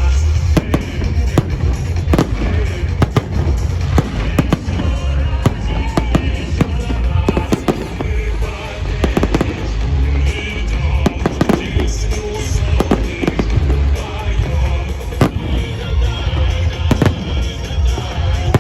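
Fireworks display: many sharp shell bursts in quick succession over a continuous deep rumble, with music playing alongside.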